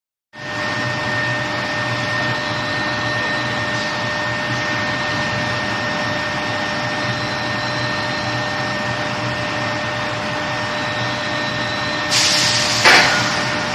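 Induction hardening line for welded pipe running: a steady machine noise with a constant high tone and a low hum. About twelve seconds in it gets louder and harsher, and a sharp knock follows about a second later.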